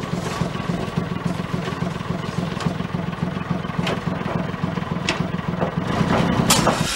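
Truck engine idling steadily, with a couple of sharp clicks about four and five seconds in.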